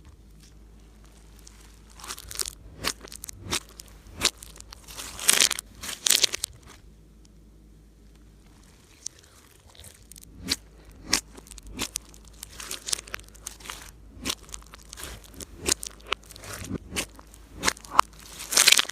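Slime being squeezed and stretched by hand, giving irregular sticky crackles and popping clicks, with a quieter pause in the middle.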